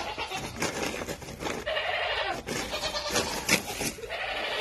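Newborn piglets squealing: two drawn-out, bleat-like calls, about two seconds in and near the end, over rustling straw.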